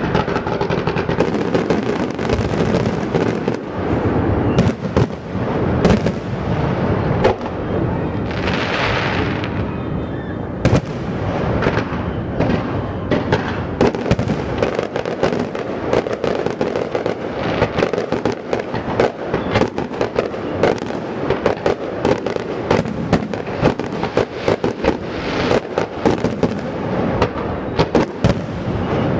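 Fireworks going off without a break: dense, irregular crackling pops and bangs, with a hissing rush about nine seconds in and again near the end.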